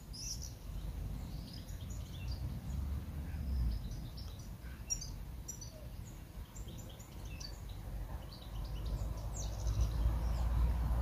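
Small birds chirping, many short high calls scattered throughout, over a low rumble that grows louder in the last few seconds.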